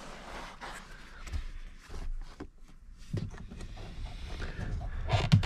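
Hands working a plastic fuel-line quick-connect fitting onto the fuel pump module in the tank opening: rustling of plastic and wiring with scattered small clicks and knocks. The handling gets busier and louder in the last couple of seconds.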